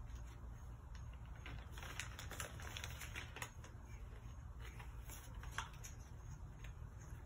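Light clicks and crinkling as metal crochet hooks, their small cardboard boxes and tissue paper are handled, busiest about two to three and a half seconds in, with a few more clicks about five seconds in.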